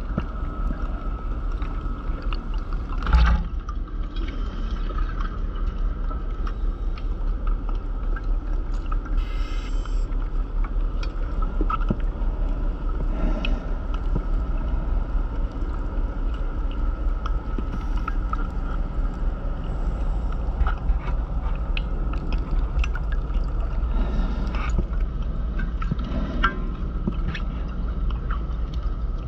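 Muffled underwater noise heard through a camera's waterproof housing: a steady low rumble with a faint steady hum. Irregular swells of divers' exhaust bubbles come every few seconds, and there is a single sharp knock about three seconds in.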